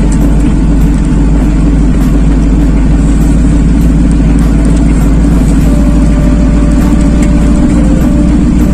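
Old lorry's diesel engine running steadily under way, heard loud from inside the cab.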